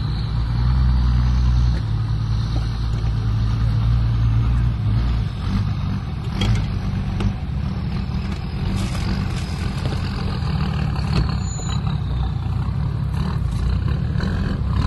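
Toyota Land Cruiser 80 Series engine running under load as the 4x4 climbs a steep rocky track, heaviest in the first few seconds. A few sharp clicks and knocks come through, from stones under the tyres.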